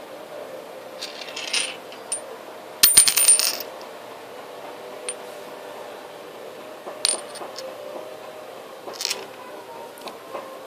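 Small hard objects clinking and rattling, loudest in a quick cluster of clicks about three seconds in, with a few more short clinks later.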